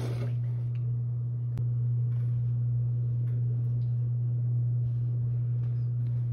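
A steady low hum, with a few faint clicks over it and one sharper click about a second and a half in.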